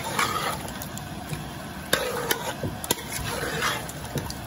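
Spoon stirring and scraping meat and chickpeas in a metal pot as they fry, with a low sizzle and a few sharp knocks of the spoon against the pot about two to three seconds in.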